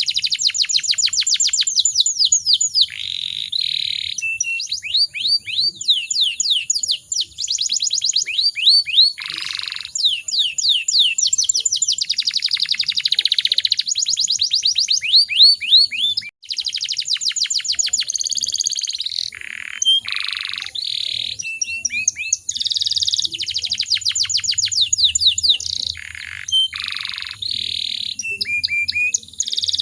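Domestic canary singing a long, almost unbroken song of fast rolls and trills, each run a rapid string of the same high note before switching to the next.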